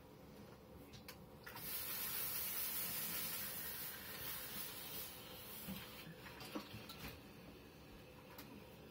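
Steam iron hissing as it is pressed onto a damp pressing cloth: a steady hiss of steam that starts about a second and a half in and fades away after a few seconds, with a few light knocks from handling the iron.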